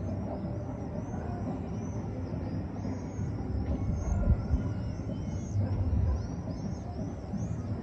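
Outdoor town ambience: a steady low rumble like passing traffic, swelling a few times, with rapid high chirps running through it.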